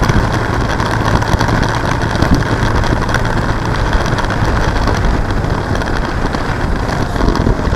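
Motorcycle riding in traffic, heard from a camera on the bike: a steady low engine hum under loud, even wind and road noise.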